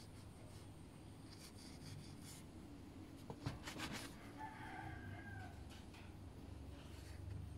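A rooster crowing faintly once, midway through, over a few light knocks of a plastic bench scraper cutting through dough onto a metal baking tray; the knocks are the loudest sounds.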